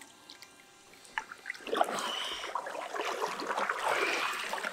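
Water splashing and sloshing, starting suddenly about a second and a half in, as wading anglers release a large carp in shallow water.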